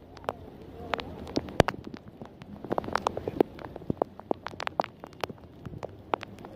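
Heavy rain: many irregular sharp taps of raindrops striking close by, over a low steady wash of the downpour.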